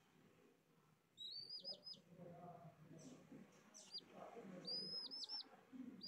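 Baby chick peeping in two quick runs of three or four high chirps, about a second in and again near the end, with a couple of single falling peeps between them, over faint low background noise.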